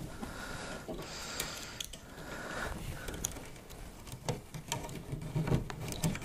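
Computer power cables being pulled and worked under the plastic fan frames of a mining rig: light rustling and scraping with scattered small clicks and knocks.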